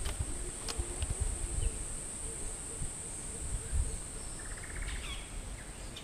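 Steady high-pitched drone of insects in jungle, with a few faint bird chirps, a short burst of rapid ticking about four and a half seconds in, and occasional low thuds.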